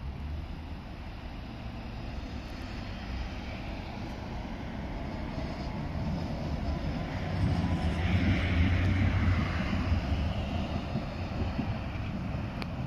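A tram running past with road traffic: a steady low rumble and wheel noise that swell to a peak about eight to nine seconds in, then ease off.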